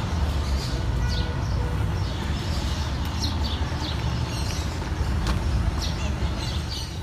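Car engine running at low revs with a deep, steady sound, and short high chirps scattered through.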